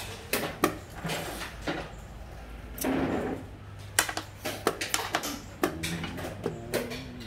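Xiangqi pieces clacking down onto and sliding across a wooden board as moves are made, a few sharp separate clacks.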